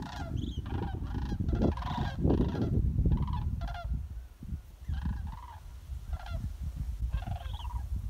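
A flock of large birds calling as they fly overhead, with many overlapping rolling, honking calls. The calls come thick and fast at first and grow sparser after about four seconds.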